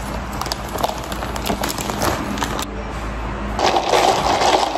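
Thin plastic carry bag crinkling and rustling as plastic cups of iced coffee are lifted out of it. From about three and a half seconds in, a steady rushing sound of coffee being sipped through a straw.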